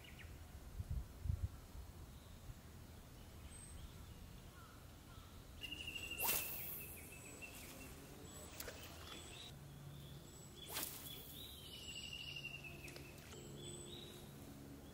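A fishing rod being cast twice, each cast a quick swish through the air, the two about four and a half seconds apart.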